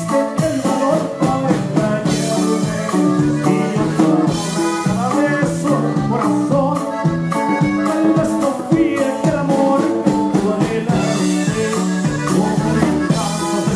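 Norteño band playing live: button accordion and saxophone over drums with a steady beat.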